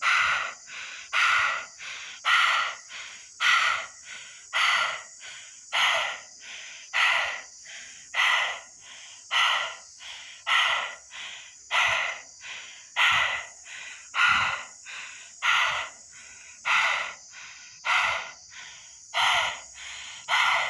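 A boy breathing quickly and heavily. A loud breath alternates with a softer one, one full cycle about every second, in an even, unbroken rhythm.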